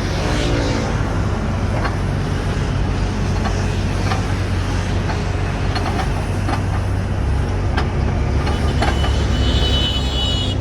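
Komatsu PC60-6 hydraulic excavator's diesel engine running with a steady low drone, with scattered sharp knocks and a brief high squeal near the end.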